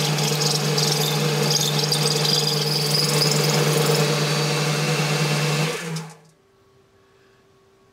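Boxford metal lathe running under cut, a form tool machining a cable channel into the face of a small metal part: a steady motor hum with a higher scraping cutting noise over it. The lathe is switched off about six seconds in and the sound stops.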